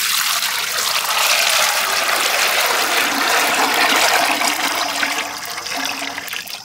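Sesame (gingelly) oil poured in a thick stream from bowls into a large metal pan, a steady splashing gush that tapers off near the end.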